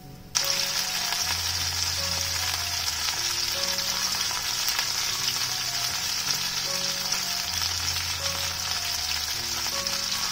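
Potato-starch-coated cod pieces shallow-frying in hot oil in a frying pan: a steady sizzle.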